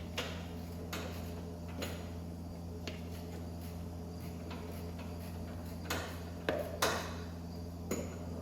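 Scattered sharp clicks and knocks over a steady low hum, with a cluster of louder knocks about six to seven seconds in.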